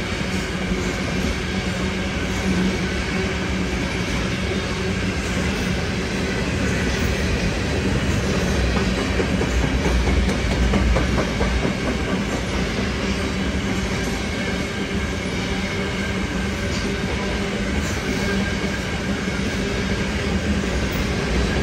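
Freight train tank cars rolling steadily past: a continuous rumble of steel wheels on rail, with wheels clicking over the rail joints.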